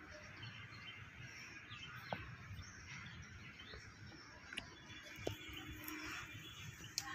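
Faint outdoor background with small birds chirping now and then, and a few soft clicks.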